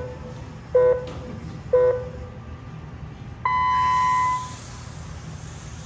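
Race start signal from the lap-timing system: short beeps about a second apart, then a longer, higher-pitched beep about three and a half seconds in that marks the go. A faint high whir of the Mini-Z RC cars setting off follows it.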